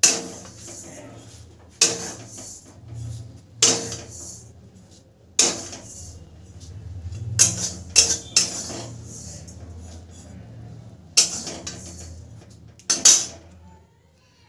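Metal spatula scraping roasted sesame seeds out of a metal kadhai, with a sharp clank of metal on metal roughly every two seconds and scraping between.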